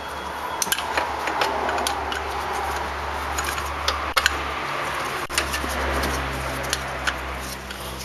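Irregular metallic clicks and clinks of a hand tool as the 10 mm bolt holding an ignition coil is refitted to the engine's valve cover, over a steady low hum.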